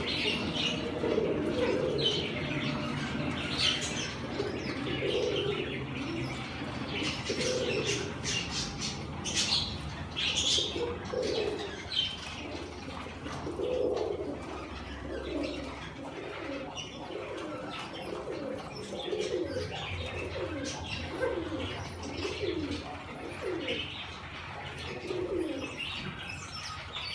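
Caged domestic fancy pigeons cooing over and over, low rolling coos every second or two, with occasional wing flutters.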